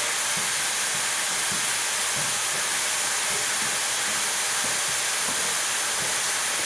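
Steam locomotive Spreewald letting off steam in a steady, even hiss.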